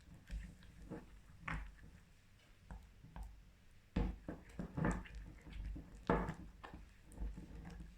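Slime being stirred and pressed in a bowl: soft, irregular squelches and light taps of the stirrer against the bowl, busier in the second half.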